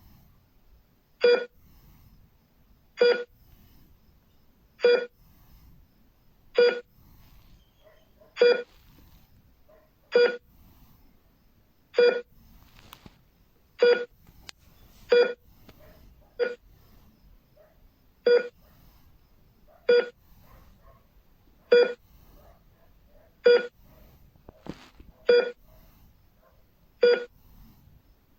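Hospital heart rate monitor beeping: a short electronic beep with each detected heartbeat, about one every two seconds, with a few beats coming closer together around the middle and near the end.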